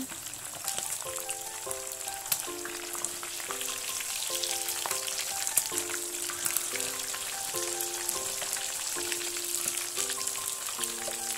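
Chicken pieces deep-frying in hot oil: a steady sizzle dotted with small crackles and pops. Quiet background music of held notes that change about once or twice a second plays over it.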